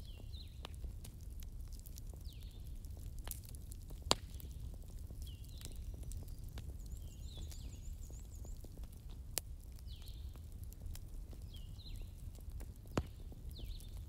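Wood campfire crackling with scattered sharp pops, the loudest about four seconds in and again near the end, over a steady low rumble. A high animal call, a falling sweep followed by a few short notes, repeats every two to three seconds throughout.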